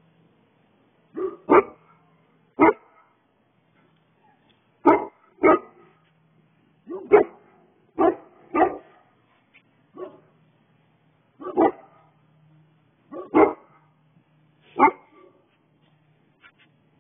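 A dog barking: about a dozen loud single barks, some in quick pairs, with pauses of one to two seconds between.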